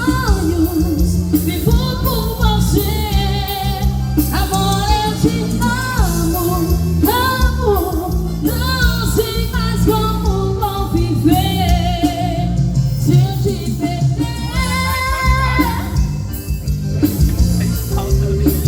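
Song with a singing voice over a band: the voice holds and slides between notes with vibrato over steady bass and drums.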